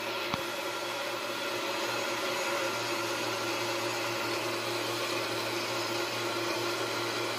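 Countertop blender running steadily with an even whirring hum, blending a liquid mix of condensed milk, evaporated milk and lime juice.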